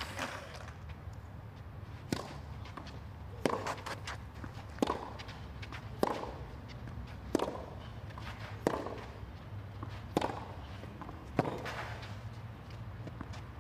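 Tennis rally on a clay court: the ball is struck by rackets nine times in a steady back-and-forth, a sharp hit about every second and a quarter, starting about two seconds in, over a low steady rumble.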